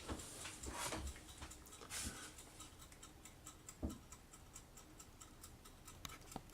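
Faint, regular ticking at about four ticks a second, with a few soft knocks of handling in the first couple of seconds and one more midway.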